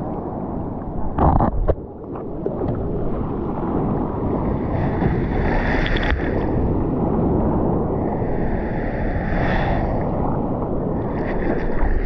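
Seawater sloshing and splashing around a bodyboard at water level as the rider paddles by hand, with a few sharp splashes about a second and a half in. Surf washes in swells.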